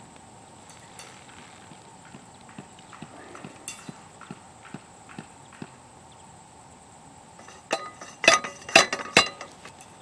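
Hand post rammer knocking on a fibreglass fence post and its sleeve: a run of light ticks, then four or five loud, sharp metallic knocks that ring, close together near the end.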